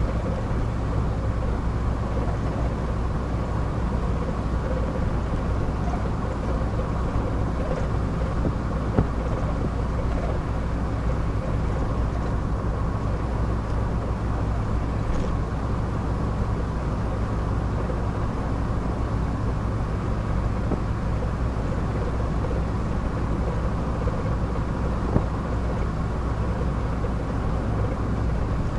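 Car cruising at a steady speed, heard from inside the cabin: an even low engine and road drone, with a couple of faint clicks.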